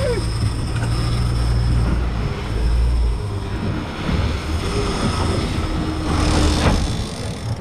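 Boat engine running, with the rush of wind and water.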